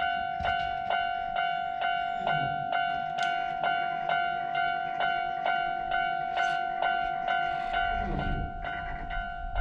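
Japanese railroad crossing warning bell ringing its steady "kan-kan", a little over two strikes a second. Near the end a train's low rumble comes in under the bell.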